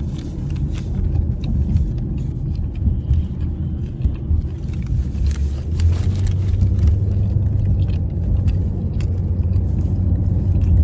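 Steady low road rumble inside a moving car's cabin, with close-up chewing and scattered mouth clicks from someone eating a soft sub sandwich.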